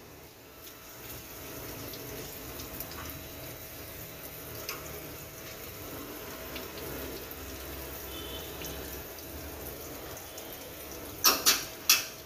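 Steady hiss like running water, then a quick run of sharp metallic clinks about a second before the end.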